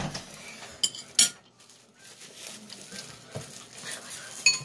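Chopsticks and ceramic bowls and mugs clinking and knocking on a table, a few separate sharp clicks, the loudest a little over a second in.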